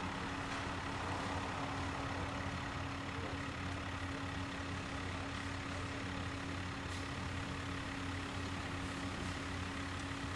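Bucket truck's engine idling steadily: a constant low hum with a fixed higher tone over it, unchanging throughout.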